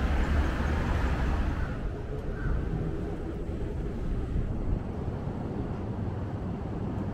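Street ambience with a low traffic rumble, louder for the first two seconds, then a steadier, slightly quieter hum.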